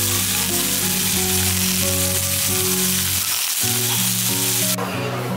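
Hamburg steak, beef, sausages and bean sprouts sizzling on a hot metal serving plate, a loud steady sizzle that cuts off suddenly near the end. Background music plays underneath.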